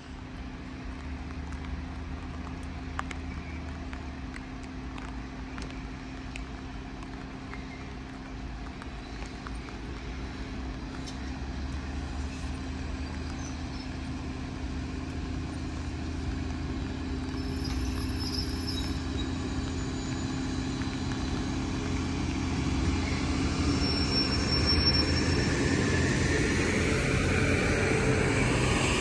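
Low rumble of an approaching train at a station, growing steadily louder toward the end, over a constant low hum.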